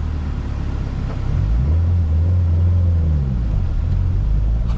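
Subaru WRX engine running while driving. Its low hum rises in pitch and grows louder about a second and a half in, holds, then drops back a little after three seconds as the revs ease.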